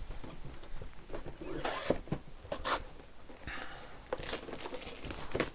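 Plastic shrink-wrap being torn and crinkled off sealed boxes of trading cards, in irregular crackling rustles that come in fits and starts.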